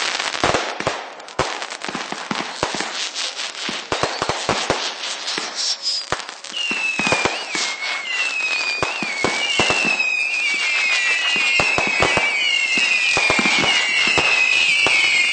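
Fireworks going off in rapid succession: dense bangs and crackling throughout. From about six seconds in, whistling fireworks join, many shrill falling whistles overlapping and growing denser toward the end.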